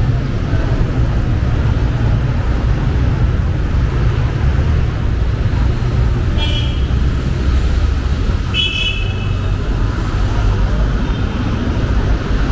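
Steady low rumble of street traffic, with two short horn toots, one about halfway through and another about two seconds later.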